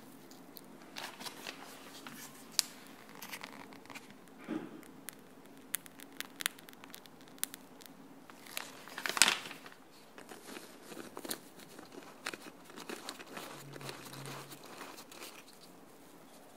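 Soft crackling and tearing of cupcake sponge as a metal cupcake corer cuts and scoops out the centres, with the crinkle of a plastic piping bag squeezing custard cream into the hollows. There are scattered light clicks and a louder rustle about nine seconds in.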